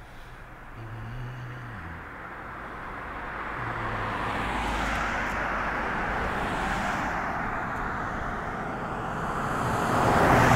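A car approaching along a paved two-lane road and passing close by, its tyre and engine noise rising steadily and at its loudest near the end.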